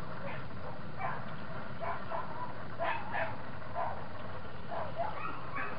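A dog barking and yipping repeatedly in short, irregular high calls, some of them whine-like.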